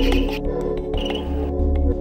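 Background music with steady held notes and light percussion.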